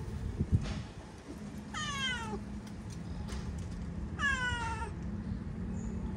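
A cat meowing twice, about two and a half seconds apart, each meow falling in pitch. A brief knock comes half a second in, louder than the meows.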